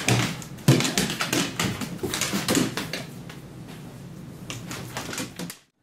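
Two Great Danes playing on a hardwood floor: a quick, irregular run of claws clicking and paws thumping and scrabbling, loudest in the first half and cut off abruptly near the end.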